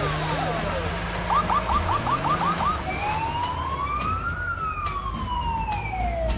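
Police car siren. It opens with a falling wail, about a second in switches to a quick yelp of rapid chirps, then settles into a slow rising and falling wail, over a low engine hum.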